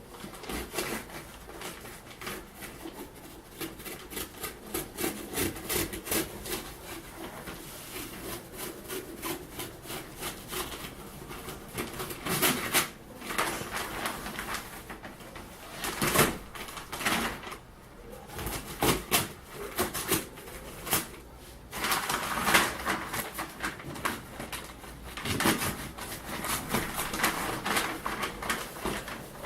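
Handling noises: an irregular run of clicks, rustles and knocks, with busier clusters a third of the way in and again later, as packaging and a new air rifle are handled.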